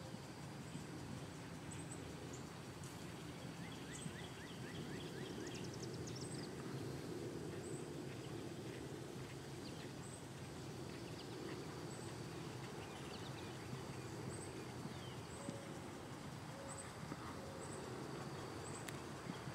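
Outdoor ambience: a steady low rumble, with a short high chirp repeating every second or so and birds chirping now and then in the middle.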